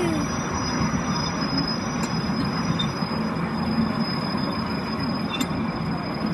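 Ride-on miniature railway train running along its track, with a steady rumble of the small cars' wheels on the rails.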